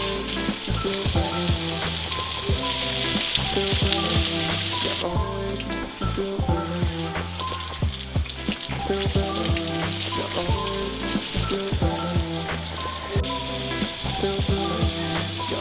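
Outdoor shower running, a steady hiss of water spray that is louder for a couple of seconds about three seconds in, over background music with a steady beat.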